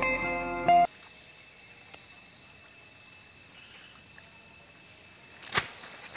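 Background music cuts off abruptly about a second in, leaving a faint, steady, high-pitched chorus of night insects. One sharp knock sounds near the end.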